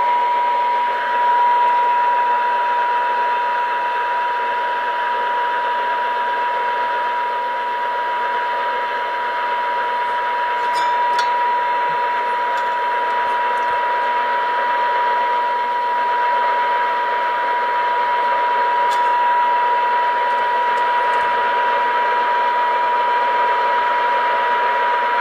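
The speaker of a 1930 Philco Model 20 tuned-radio-frequency set plays a steady test tone over static hiss. This is a generator signal being received while the RF stages' trimmer capacitors are peaked for maximum signal during alignment. A few faint clicks come from the alignment tool on the trimmers.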